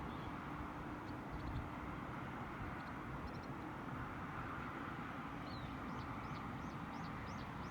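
Outdoor ambience: a steady rushing background noise with small birds' short high chirps here and there, and a quick run of chirps near the end.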